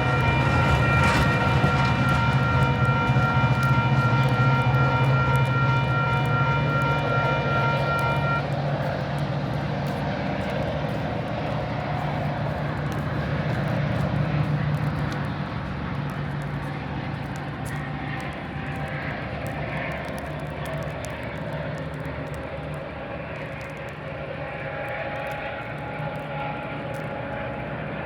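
Metra diesel commuter train running and pulling away, its engine a steady low hum. A steady high-pitched tone on top of it cuts off about eight seconds in, and the train sound then slowly fades.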